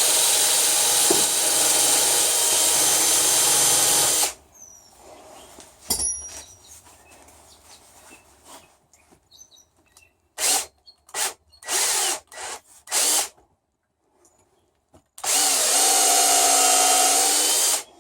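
Power drill used as a mini lathe, spinning a wood dowel against sandpaper to sand it down to size. It runs steadily for about four seconds, then in a string of short bursts, then steadily again near the end.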